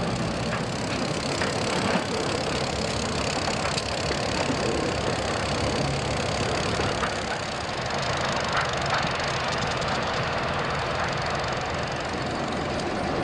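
EMD SW8 diesel switcher locomotive, with its eight-cylinder 567 engine, running steadily with a few faint clicks.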